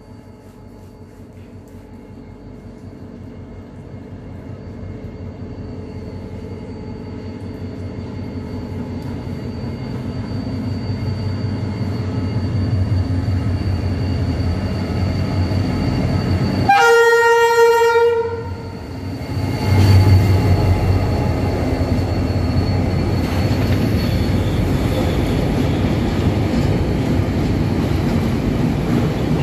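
Diesel freight train approaching and running through a station, growing steadily louder with the locomotive's engine drone. About seventeen seconds in the locomotive gives one horn blast of about a second. The engine and the long line of loaded wagons then pass close by, loud and clattering.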